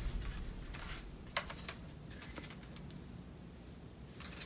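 A few faint clicks and taps of a plastic toy blaster being handled, the loudest two close together about a second and a half in, after the tail of background music fades away at the start.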